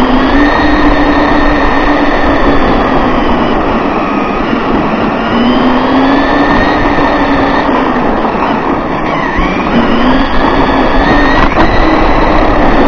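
Radio-controlled buggy running laps, recorded from a camera on the car itself: a steady hum that rises and falls in pitch with its speed every few seconds, over constant road and wind noise.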